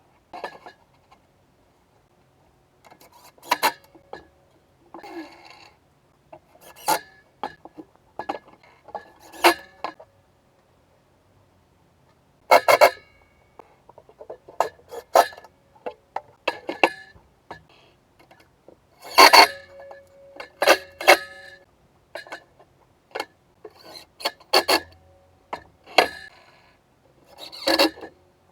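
Irregular sharp knocks and clinks, some with a brief ringing afterwards, as of tools and metal parts handled and set down in workshop assembly work.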